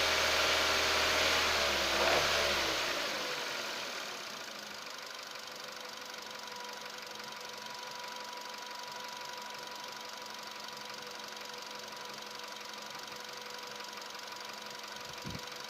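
Nissan Qashqai J10 engine running at raised revs for the first few seconds, then dropping back to a steady idle. The car is being checked for a knock and noise from the engine bay at idle and under acceleration.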